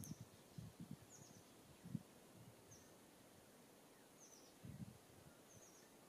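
Faint short high chirps from a small songbird, five times about a second or so apart, each a quick stuttering run of notes. Between them come a few soft low thumps, the sharpest about two seconds in.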